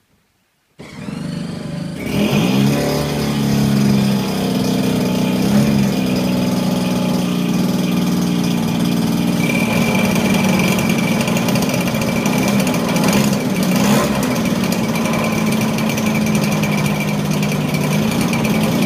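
26cc Zenoah two-stroke petrol engine on a large radio-control model aircraft, on its first run. It starts about a second in, picks up speed over the next second or so, then runs steadily.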